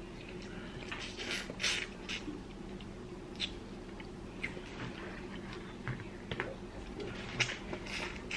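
Boiled head-on shrimp being peeled by hand: small, irregular crackles and wet snaps of shell and heads coming off, with some mouth sounds of sucking and chewing.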